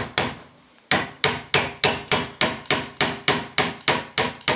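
Nails being driven into a flat-pack cabinet board with a socket ratchet wrench used as a hammer: quick, even metal-on-metal strikes, about four or five a second, each with a short ring, after a brief pause near the start.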